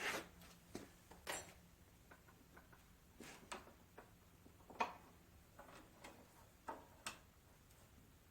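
Faint, irregular light clicks and taps, about ten of them spread unevenly, from small steel blocks and a steel ruler being handled and set against each other.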